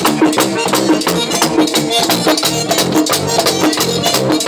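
Live band music with a fast, steady beat: a two-headed tambora drum and electric guitars playing together.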